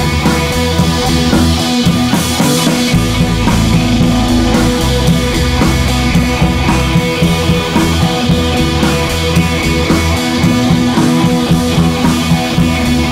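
Background rock music with electric guitar and a drum kit.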